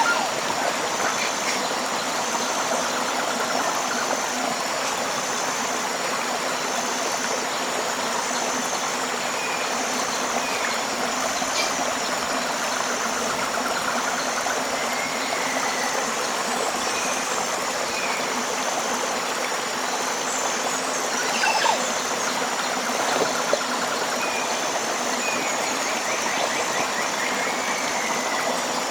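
Tropical river flowing steadily, a continuous rush of water. A high, evenly pulsing chirp runs throughout, with scattered short bird chirps over it.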